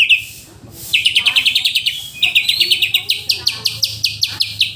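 Seven-month-old caged bird singing a long, fast run of repeated high chirps, about ten notes a second. It breaks briefly about two seconds in, then carries on slightly higher.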